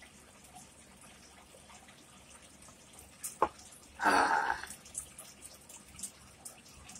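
After a drink, a man gives one short, loud, breathy open-mouthed exhale, a gasp-like 'ahh', about four seconds in. A sharp click comes just before it. Faint wet mouth clicks follow as he starts eating.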